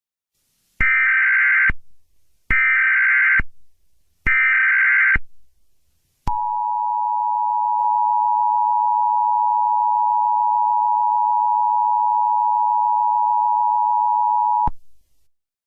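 Emergency Alert System header and attention signal. Three short SAME data bursts of about a second each, a second apart, are followed by the two-tone attention signal: two close steady tones sounding together for about eight seconds, then cut off. This is the sequence that opens an emergency alert broadcast.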